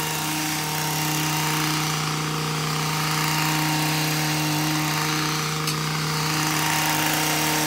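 Stihl MM 55 C tiller's small 4-MIX engine running at a steady speed while its tines churn soil, its pitch holding even throughout. One brief click about two thirds of the way in.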